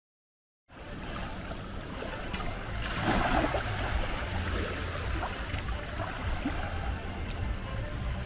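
Rushing water noise over a steady low rumble, starting abruptly just under a second in, with a louder swell about three seconds in.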